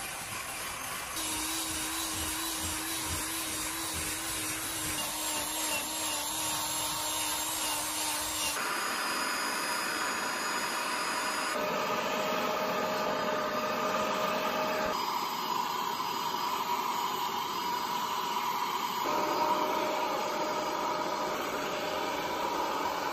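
Cordless drill with a scrub brush running and scrubbing foamed cloth car-seat upholstery, its motor note wavering. After abrupt cuts, an upholstery cleaning nozzle makes a steady hiss as it is drawn over the seat fabric.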